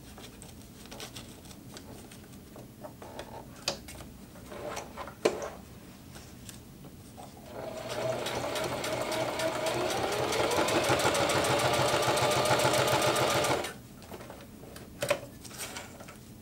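Singer HD6360M sewing machine sewing a straight stitch through four layers of 1680-denier nylon: it starts about halfway through, speeds up, runs steadily for several seconds and stops suddenly. Before and after the run there are a few light clicks and knocks of the fabric and machine being handled.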